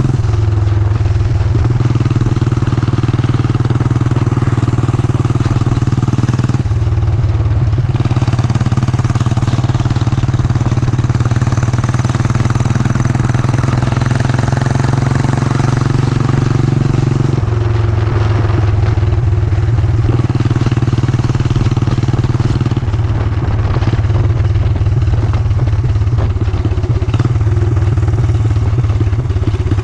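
Yamaha SR400's air-cooled single-cylinder engine running while the motorcycle is ridden, with wind rush over it. The engine note changes several times: about a second in, around 7 and 17 seconds, and again at about 23 seconds.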